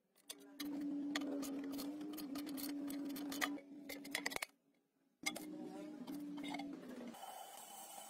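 Powered ratchet spinning out the bolts on a rusty engine cover: a steady whine with rapid clicking. It runs twice, with a short pause a little past halfway. About seven seconds in, a steady gas-torch flame hiss takes over.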